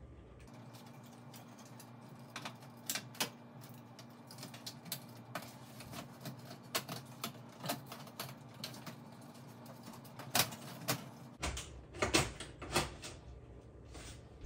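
Irregular light clicks and taps of hands handling plastic wire connectors, the ribbon cable and the sheet-metal control board housing of an oven, with a cluster of louder knocks about ten seconds in.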